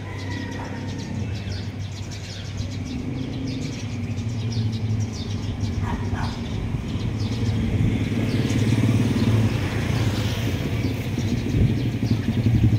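An engine running with a steady low drone that grows gradually louder, with faint chirps above it.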